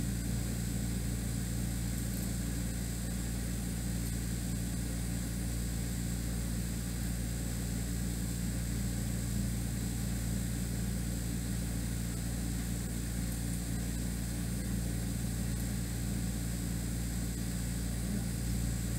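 Steady low machine hum, even in level, with a faint constant hiss above it.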